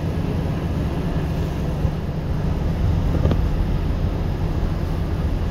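Wind buffeting a phone's microphone outdoors: a steady, uneven low rumble, with a single small click about three seconds in.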